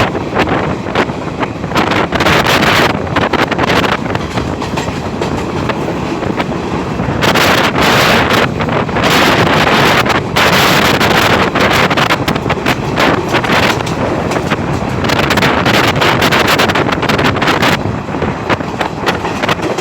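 Train running on the rails, heard from on board, with wind buffeting the microphone in loud gusts.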